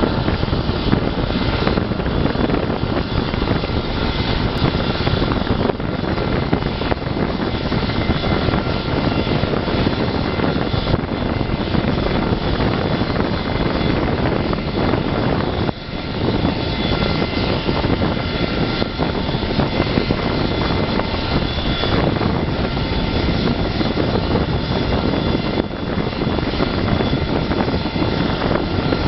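CC-177 Globemaster III's Pratt & Whitney F117 turbofan engines idling on the ground: a loud, steady rush with several steady high whining tones over it.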